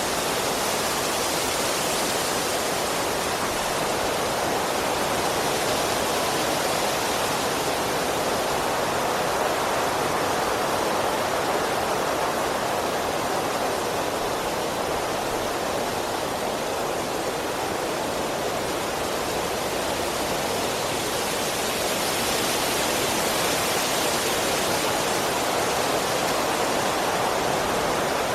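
Strong wind rushing through the leaves and branches of trees: a steady hiss that slowly swells and eases.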